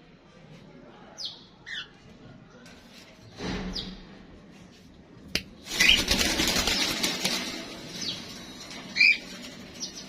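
Cockatiels making short squawking calls, with a loud flurry of wing flapping starting about six seconds in and lasting a couple of seconds.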